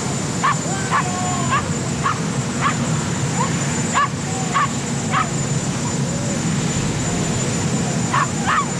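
Cavalier King Charles Spaniel yipping in about ten short, high barks over a steady low drone. The barks pause for a couple of seconds before two more come near the end.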